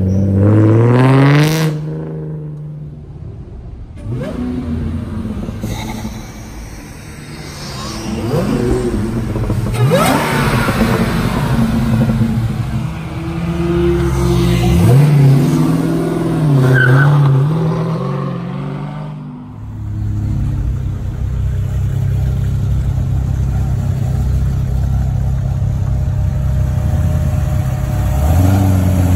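Sports car engines revving as cars pull away one after another. A Nissan 350Z's engine rises in pitch at the start and is cut off about two seconds in. Midway a Dodge Challenger's engine rises and falls, and from about twenty seconds a C6 Corvette's V8 runs steadily at low revs, picking up near the end.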